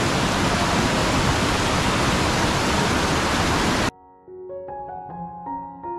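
Loud, steady rushing of whitewater over boulders in a mountain river. It cuts off suddenly about four seconds in, and soft piano music starts, with single notes ringing out.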